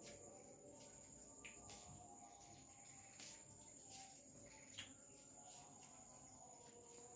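Faint crickets chirping in a steady high trill, with a few faint clicks, the clearest nearly five seconds in.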